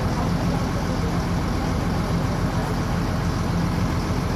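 A boat engine running steadily with an even, low hum.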